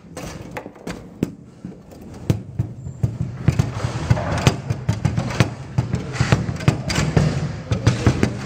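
Foosball rally: the ball is struck by the players' figures, with rapid, irregular sharp clacks and knocks. The knocks come sparsely for the first few seconds, then more densely.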